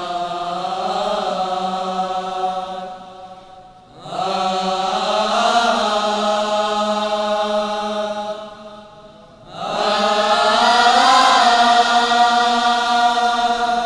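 Choir of boys and young men singing a tarana (devotional anthem) together in unison, in long held notes: three sustained phrases, with short breaks for breath about four seconds in and again about nine and a half seconds in.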